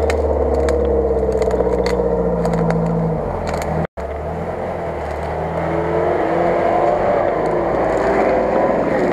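Off-road 4x4 engines running steadily at low speed under load through thick undergrowth: first a UAZ-469, then, after a sudden cut just under four seconds in, a Nissan Patrol. Grass, twigs and branches crackle and scrape against the bodywork.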